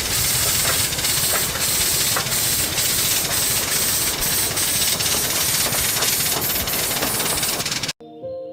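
Loud, steady hiss of a steam locomotive letting off steam, with a few faint knocks, cutting off suddenly near the end.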